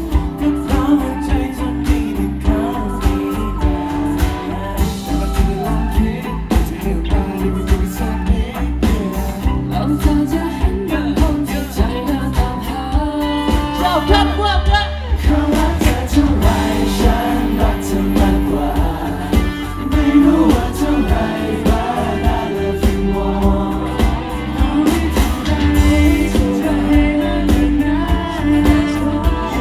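Live pop-rock performance: several male vocalists singing into microphones over a live band of electric guitars and drums, with a steady beat, heard loud through the stage PA.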